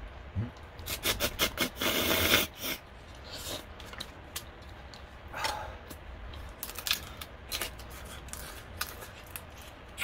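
Boiled snow crab legs being broken and their shells pulled apart by hand: a run of crackling clicks and scraping, with a longer rasping crunch about two seconds in.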